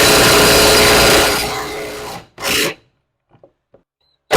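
Power wrench running to spin a nut off a suspension bolt. One long run fades out about two seconds in, a short burst follows, and it starts up again at the very end.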